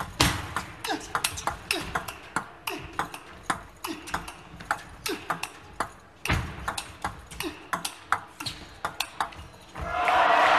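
Table tennis rally: the ball clicks sharply back and forth off the bats and the table, several hits a second. About ten seconds in, loud crowd applause breaks out.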